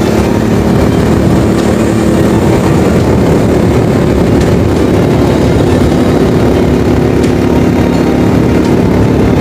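Engine and road noise of a moving vehicle, running steadily, with a low engine tone that shifts slightly about six seconds in.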